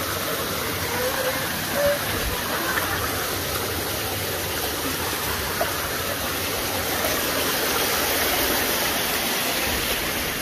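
Creek water rushing over rocks in a small cascade, a steady rushing noise, with one brief thump about two seconds in.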